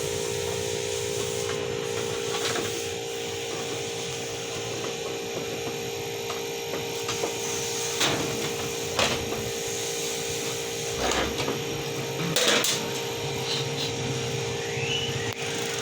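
Rubbing and handling noises with a few sharp knocks, heard as a washing machine is opened up and tested, over a steady background hum.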